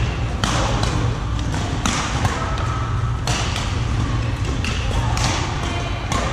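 Badminton rackets hitting a shuttlecock during a doubles rally, sharp hits about every second and a half, over a steady low hum and the background noise of a busy badminton hall.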